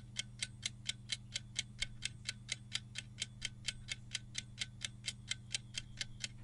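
Clock-tick sound effect of a quiz countdown timer, ticking steadily about four to five times a second over a faint low hum.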